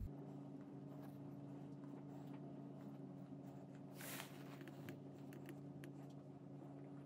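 Faint small clicks and rustles of fingers twisting thin electrical wire ends together, with a brief louder rustle about four seconds in, over a steady low hum.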